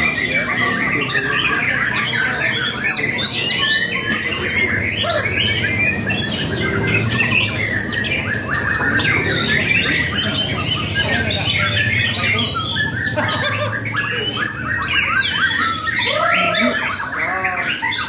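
Many caged songbirds singing at once: a dense, unbroken chorus of overlapping whistles, chirps and chatter.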